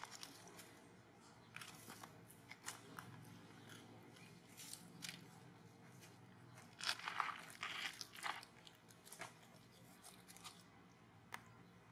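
Faint, irregular crunching and crackling of dry fallen leaves on pavement, with a denser cluster of crackles about seven seconds in.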